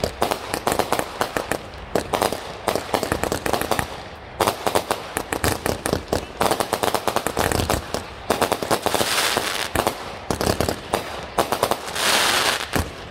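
Consumer 200-gram fireworks firing: rapid strings of sharp shots and pops, with brief lulls about 4 and 8 seconds in, and two longer spells of dense crackle near the end.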